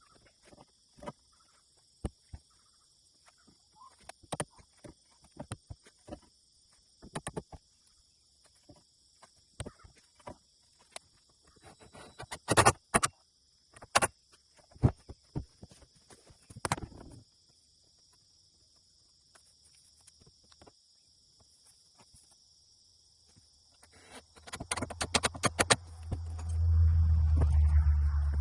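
Irregular knocks and clicks of timber and tools being handled during shed building, with a steady high insect-like chirring behind them. Near the end a rapid run of clicks leads into a loud, low, steady hum.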